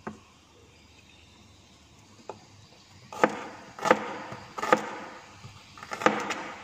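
Cleaver slicing shallots on a cutting board: after a couple of light taps, four sharp knocks of the blade striking the board, about a second apart, in the second half.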